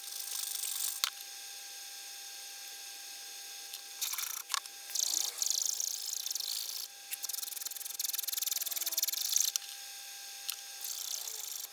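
Small hand file rasping on a titanium watch-clasp part, filing it down to fit: several spells of strokes with short pauses between, and a sharp click about a second in.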